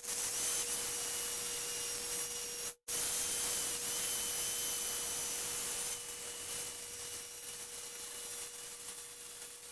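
Electric knife running as its blades cut through 4-inch memory foam: a steady motor hum with a thin high whine over a hiss. It breaks off for a moment about three seconds in, then runs on.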